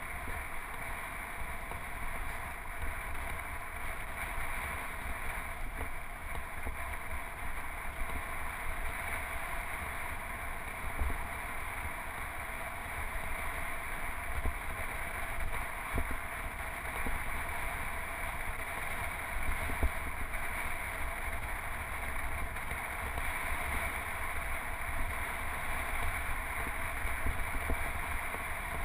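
Wind rushing over the microphone of a handlebar-mounted action camera on a road bike while riding, a steady noise with low, uneven buffeting underneath.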